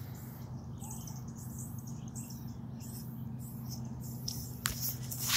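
Birds chirping in the trees, high-pitched and repeated, over a steady low hum. There are two sharp clicks near the end.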